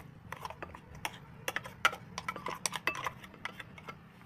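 Metal spoon clinking and scraping against a stainless-steel mixer jar and a glass bowl as thick ground chutney is scooped out, a quick, irregular run of clinks and scrapes.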